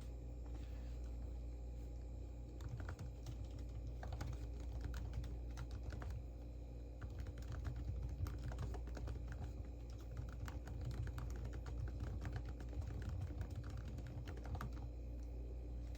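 Computer keyboard being typed on in irregular runs of key clicks, starting a couple of seconds in and stopping shortly before the end, over a steady low hum.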